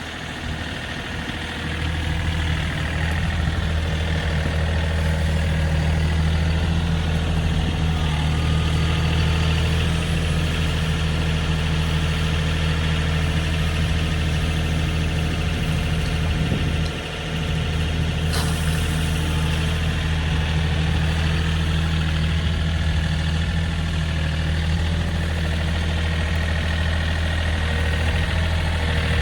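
A loader's engine running steadily under a heavy low drone, building up over the first couple of seconds, with a brief dip in level about two-thirds of the way through.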